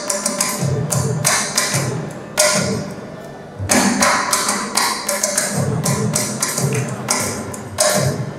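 Mridangam played in a fast percussion passage: sharp, ringing strokes on the tuned right head over deep bass strokes from the left head, with loud accented hits at a few points.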